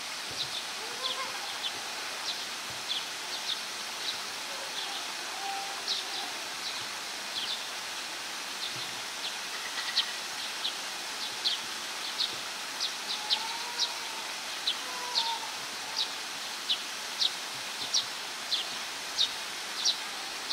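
A small bird chirping over and over, short high chirps about one or two a second that become more regular near the end, over steady outdoor background noise.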